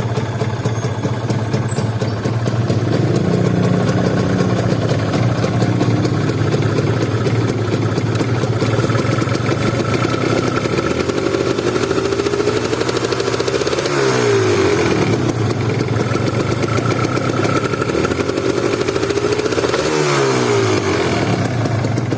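Kawasaki Ninja RR's 150 cc single-cylinder two-stroke engine running at idle and being held at rising revs. The revs climb slowly, fall back sharply about 14 seconds in, then climb and drop again near the end.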